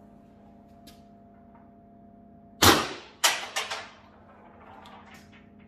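A single shot from a CO2-powered First Strike Compact less-lethal carbine: one loud sharp pop about two and a half seconds in, followed within the next second by a few quicker knocks and rattles that fade out.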